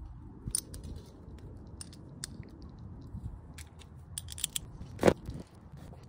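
Small metal hardware clicking and clinking as the handguard's mounting bolts, washers and nuts are handled and undone with a small wrench, with one sharper clink about five seconds in, over a low steady rumble.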